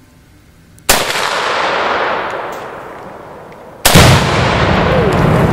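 A 7.62×39 rifle shot from a Romanian AKM about a second in, its echo rolling away through the woods; the shot misses and sets nothing off. A second shot about four seconds in detonates a half pound of Tannerite: a heavier, deeper blast followed by a long rumbling echo.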